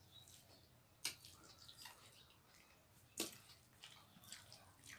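Quiet, wet eating sounds: fingers mixing rice and chicken curry in steel bowls, and chewing, with soft scattered squelches and clicks. Two sharper clicks stand out, about a second in and just after three seconds.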